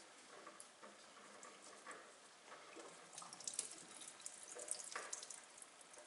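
Faint trickling and dripping of diesel fuel from a fuel filter being loosened, with scattered small clicks and taps, busiest a few seconds in.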